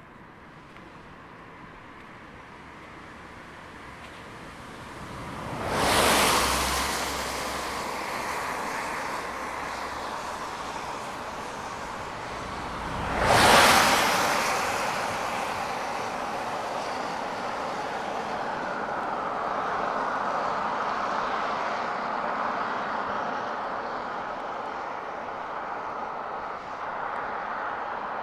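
Cars passing close by, tyre and engine noise swelling to a brief peak about six seconds in and again about thirteen seconds in. A steady vehicle noise lingers after.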